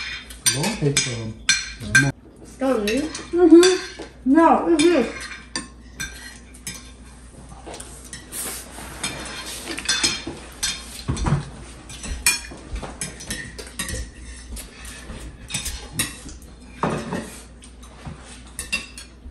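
Spoons and forks clinking against ceramic plates and bowls as several people eat, many small clinks throughout. Brief voices in the first five seconds.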